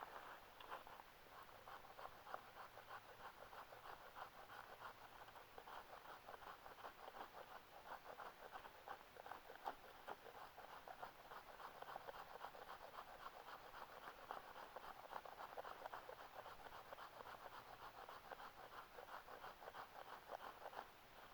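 The small saw blade of a pocket knife cutting through wood, a faint, steady run of quick scratchy strokes.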